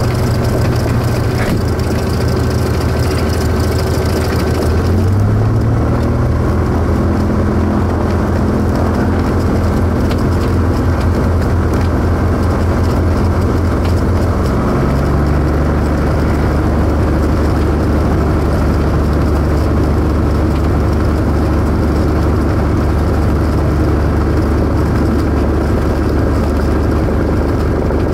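Cessna R172K Hawk XP's six-cylinder Continental IO-360 engine and propeller, heard from the cockpit. It runs at low power while the plane lines up on the runway and picks up slightly about five seconds in. About halfway through it steps up to takeoff power and holds steady through the takeoff roll.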